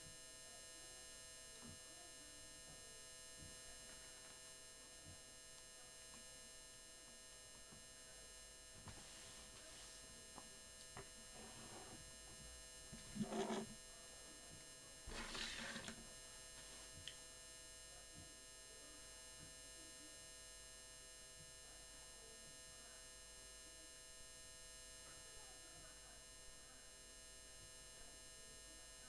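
Steady electrical hum with many even overtones, with a few brief handling noises around the middle, the loudest about halfway through.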